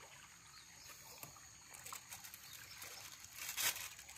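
Faint handling sounds of a woven bamboo fish trap being worked by hand, with one louder brief rustle about three and a half seconds in.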